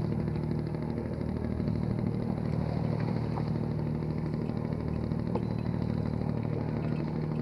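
Fishing boat's engine idling steadily with a low hum, a few faint clicks over it.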